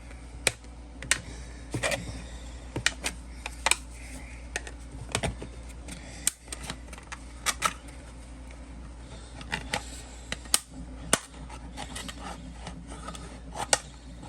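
Hard 3D-printed plastic parts clicking and knocking together as they are handled and fitted into a printed tool box, in irregular sharp taps, some louder than others.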